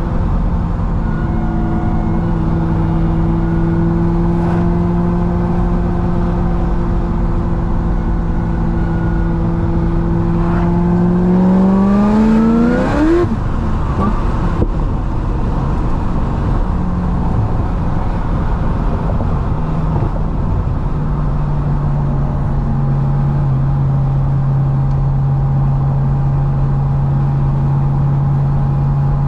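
C6 Corvette ZR1's supercharged 6.2-litre LS9 V8, tuned to about 1000 hp, cruising at a steady drone. About eleven seconds in it is given a burst of throttle, its pitch rising sharply for a couple of seconds before cutting off. It then settles back to a steady, slightly lower cruise.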